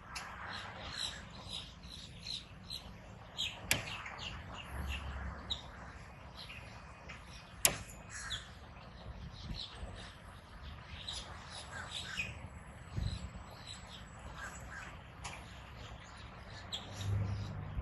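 Light metal ticking and clicking of a Lishi pick-decoder being worked in a Ford Transit's door lock, with two sharper clicks about four and eight seconds in.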